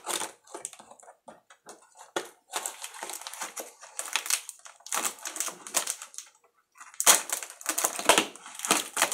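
Knife blade cutting and scraping through packing tape and cardboard on a shipping box, in irregular crackling strokes. There is a brief pause a little after six seconds, then louder rips and crackles.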